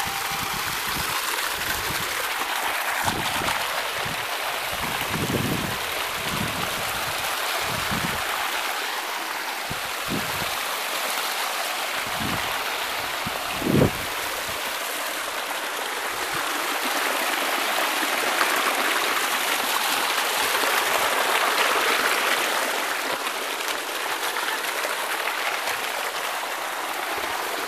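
Water running fast down a narrow lined channel on a mountainside, a steady rushing and splashing flow. A few low thumps sound in the first half, with one short louder knock about halfway through.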